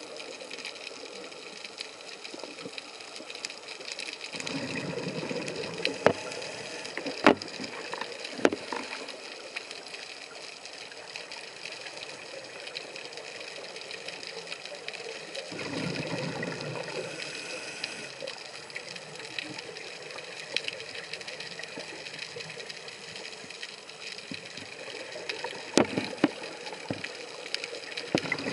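Underwater sound of a scuba diver breathing through a regulator: rushing exhaled bubbles about four seconds in and again about fifteen seconds in, with another exhalation starting near the end. Under it runs a steady high whine, and there are a few sharp clicks.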